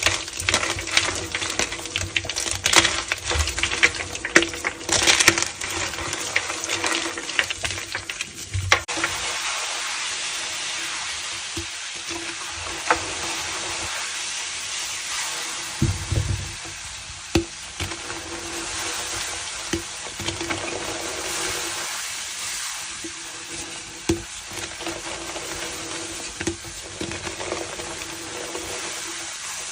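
ASMR crunching and crackling of gym chalk and soap foam. Dense, crisp crunches come for about the first nine seconds, then a steady fizzing crackle with scattered pops.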